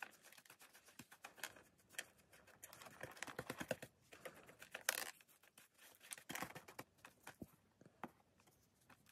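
Paintbrush bristles scratching through damp worm castings and across a plastic tub: faint, irregular scratchy brushing strokes, with a sharper scrape about five seconds in.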